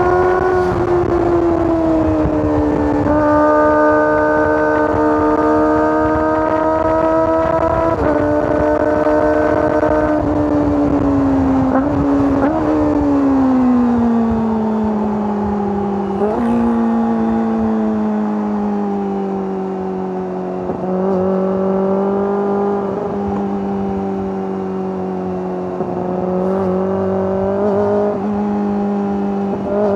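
Kawasaki ZX-25R's 249 cc inline-four engine and exhaust under way at high revs. The pitch steps down about three seconds in, then falls as the throttle eases about twelve seconds in. It holds a lower steady cruise with a few short blips and starts climbing again at the very end.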